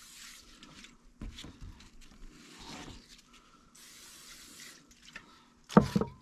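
Aerosol cooking spray hissing in short bursts: one burst ends just after the start, and another lasts about a second in the middle. Light handling knocks come between the bursts, and a sharper, louder knock comes near the end.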